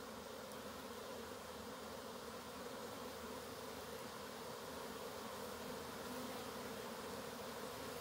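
A swarm of honeybees buzzing in a steady, even drone as it is hived into a new box.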